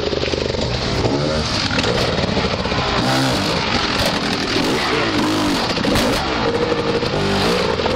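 Enduro motorcycle engine revving hard under load as the bike climbs over mud and loose bricks, its revs rising and falling again and again as the throttle is blipped.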